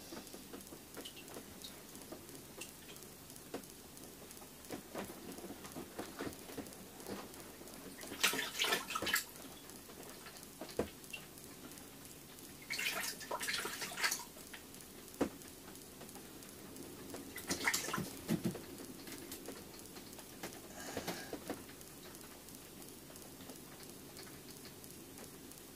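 Quiet small-room background with scattered water-like splashing and rustling noises: four louder bursts about a second long each, spread through the middle, and a few sharp ticks between them.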